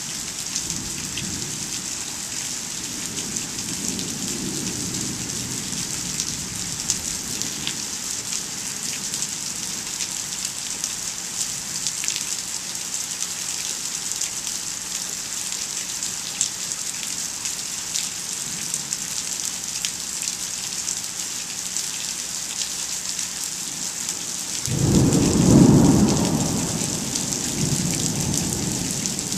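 Rain falling steadily in a thunderstorm, a constant hiss. A faint low rumble of thunder comes near the start, and a louder roll of thunder swells near the end and slowly fades.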